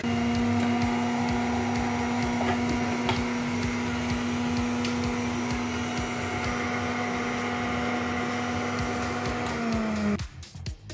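Moulinex Frutelia centrifugal juicer's motor running with a steady hum while juicing carrots and apples. There are a few faint clicks from pieces in the spinning basket. Near the end it is switched off, and the hum drops in pitch as the motor winds down, then cuts out.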